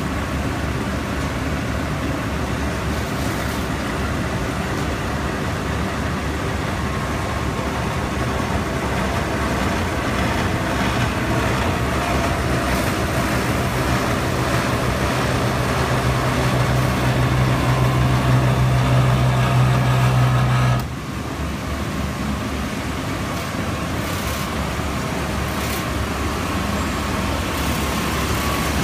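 Textile recycling machinery running steadily in a workshop. A deep hum grows louder from about a third of the way in and cuts off suddenly about two-thirds through, leaving a steady, slightly quieter machine noise.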